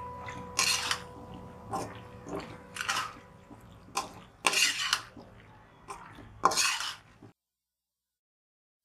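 Metal spatula scraping and knocking against a black iron wok while stirring macaroni on high flame, in a string of irregular strokes. The sound stops abruptly about seven seconds in.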